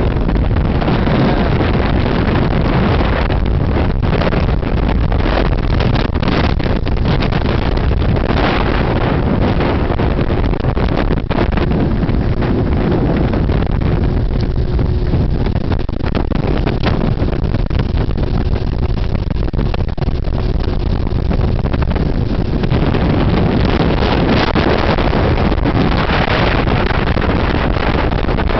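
Motorboat running under way at steady speed, with a heavy, steady rumble of wind on the microphone over the engine and water.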